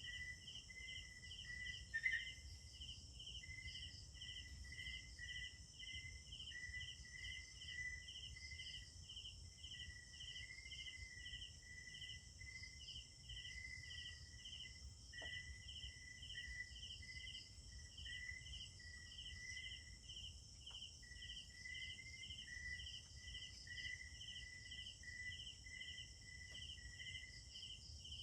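Night insect chorus: one insect gives an even, regular chirp about three times every two seconds, over an uneven chirping and a continuous high trill from others, with a faint low rumble underneath. A single brief louder click comes about two seconds in.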